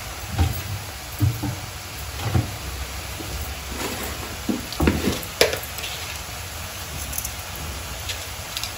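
Grated beetroot sizzling in a kadai while a slotted steel spatula stirs it, giving a few dull knocks early on and a cluster of sharper scrapes and clicks against the pan midway.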